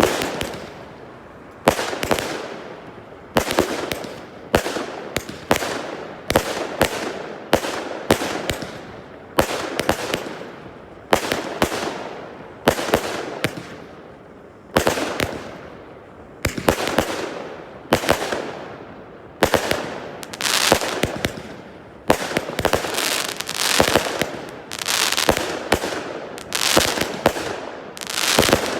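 Fireworks display: shells bursting one after another, roughly one a second, each bang followed by a fading crackle and echo.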